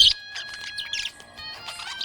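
Budgies chirping in a few short bursts over a steady held tone from background music. The chirping thins out in the middle, between busier stretches.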